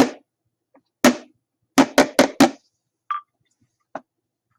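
Drum beaten in a short rhythm: a single beat, then four quick beats in a row. A brief higher blip and a single click follow near the end.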